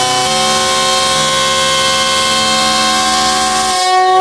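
Pakistan Railways diesel locomotive's air horn sounding one long, loud blast of several tones at once as the locomotive pulls past close by.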